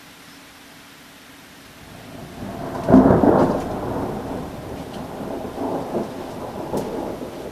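Thunder: a clap that builds about two seconds in and breaks sharply about a second later, then rumbles on in rolling waves.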